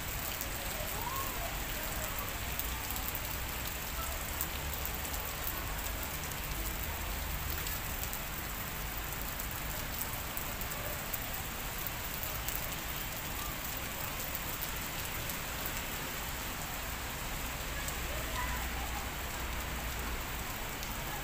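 Steady rain falling on wet pavement: an even hiss with scattered drop ticks.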